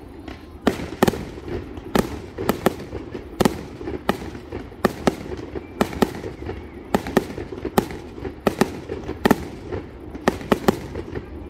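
Fireworks display: aerial shells bursting in a steady, irregular string of sharp bangs, about two a second, over a constant low background rumble.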